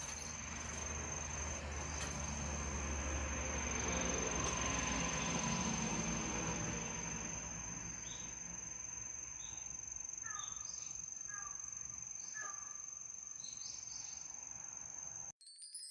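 Crickets singing: one steady, high, unbroken trill. A few short, faint calls come between about ten and thirteen seconds in, and a low rumble sits under the first half.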